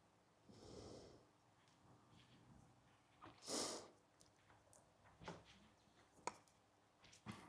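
Near silence with faint hand-work noises: a short rustle about three and a half seconds in and a few small clicks near the end.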